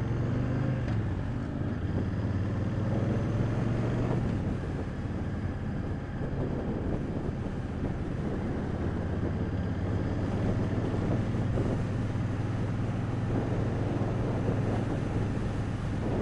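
Motorcycle engine running steadily while riding along a street, with wind noise on the microphone.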